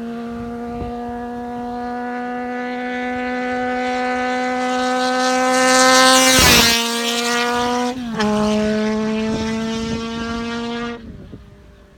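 Kawasaki Z400FX's air-cooled inline-four at high revs through a Nakazawa dual-outlet silencer, with a high-pitched exhaust howl. The pitch climbs slowly and the sound is loudest about six seconds in, where the pitch dips as the bike goes by. The pitch steps down again about eight seconds in, and the sound fades out near the end.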